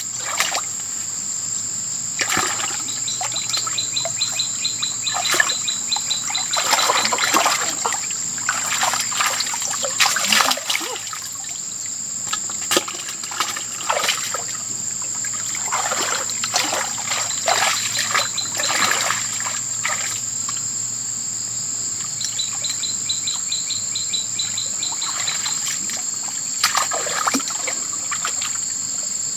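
Hands and feet splashing and sloshing in shallow muddy stream water in irregular bursts, from groping along the bottom for fish. Underneath is a steady high-pitched insect drone and short rapid chirping trills.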